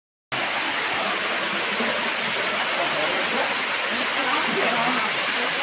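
Steady rushing of a waterfall, with faint voices underneath. It opens with a split second of dead silence.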